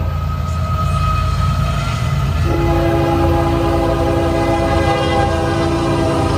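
Approaching Union Pacific diesel locomotives with a steady low rumble, their air horn chord cutting off at the start and sounding again about two and a half seconds in as a long held blast.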